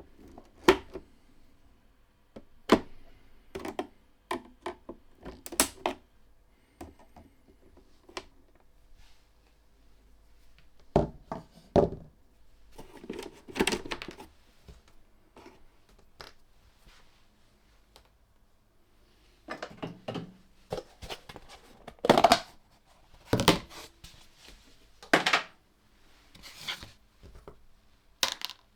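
Irregular clicks, knocks and light clatter of hands working on a 1970s Armstrong 626 receiver's case, undoing its plastic screws to open it. The knocks come in busier clusters a third of the way through and again past the middle.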